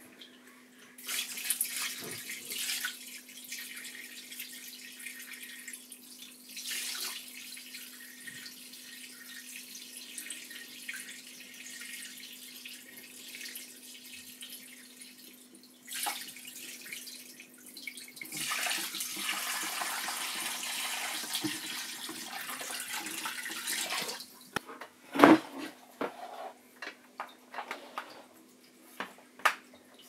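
Water poured from a jug into a glass tank, splashing onto white fleece laid over the tank floor. The pouring comes in two spells, a short one soon after the start and a longer, heavier one in the second half. It is followed by drips and a few knocks, one of them sharp and loud.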